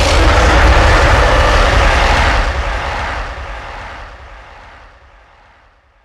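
A sound-effect roar presented as a Gigantopithecus call, rough and noisy with a deep rumble underneath. It starts abruptly and fades away over about five seconds.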